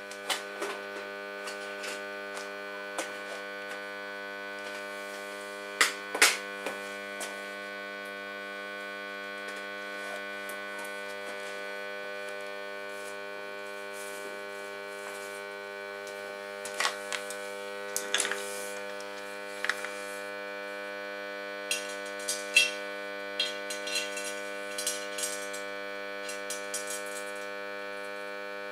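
Transformer stick welder humming steadily, with scattered sharp metal clinks and taps over it, the loudest about six seconds in and again near the end.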